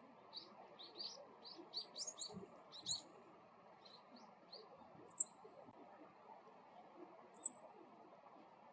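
Male meadow bunting giving its call note, a short, high, sharp double 'chi-chit', twice: about five seconds in and again about seven and a half seconds in. A run of fainter, lower chirps comes in the first half.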